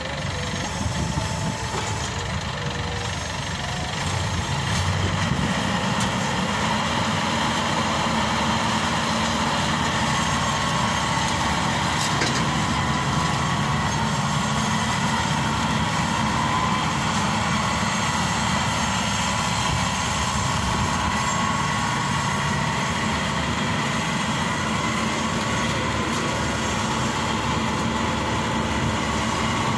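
Maxxi Bimo 102 crawler combine harvester's diesel engine running steadily as the machine travels and turns on its rubber tracks, growing louder about four seconds in.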